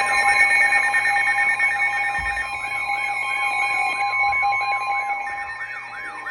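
Emergency alert tones sounding together: steady alarm tones with a warbling tone over them that sweeps up and down about four times a second. They grow quieter after about four seconds.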